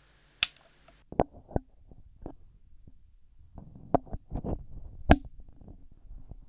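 Clicks and knocks of cable connectors being handled and plugged in: a USB plug pushed into the audio interface, then a metal XLR connector worked onto the base of a Samson Q2U microphone, with rubbing handling noise and a sharp click a little after five seconds in, the loudest of the clicks.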